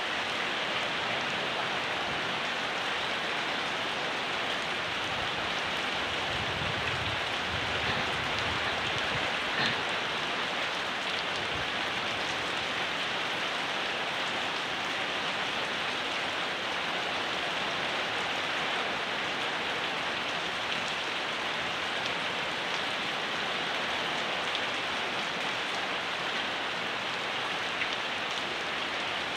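Steady rain falling, a dense even hiss with faint individual drop ticks, and a few brief low rumbles in the first ten seconds.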